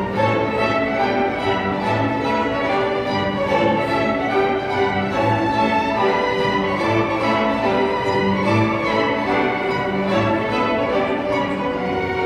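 A string orchestra of violins, cellos and double basses playing a piece together, with bowed notes held and moving in several parts at a steady level.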